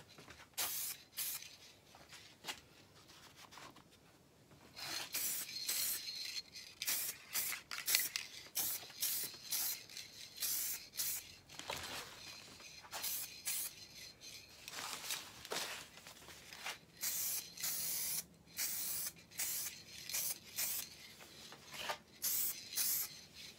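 Aerosol spray-paint can spraying in many short hissing bursts, with a quieter lull from about two to five seconds in.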